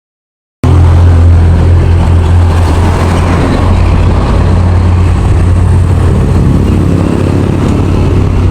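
Steady running noise of a motor vehicle: a loud, constant low rumble with a haze of road and wind noise, cutting in abruptly about half a second in.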